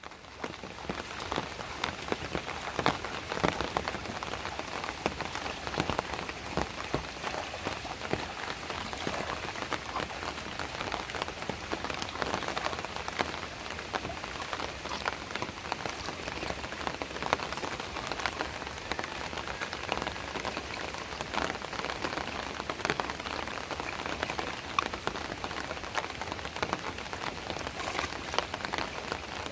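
Steady rain falling, with a dense, irregular patter of individual drops striking the surface.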